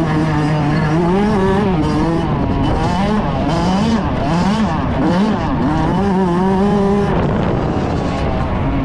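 Dirt bike engine being ridden hard, its pitch climbing and dropping several times as the throttle opens and closes through the gears.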